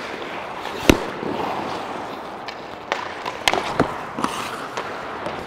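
Ice hockey skates scraping across the ice, broken by sharp cracks of sticks and pucks: a loud crack about a second in, then a cluster of several more between three and four and a half seconds in.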